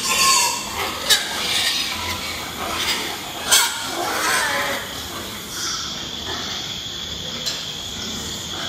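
Pigs grunting and moving about in a barn pen, with a few sharp knocks.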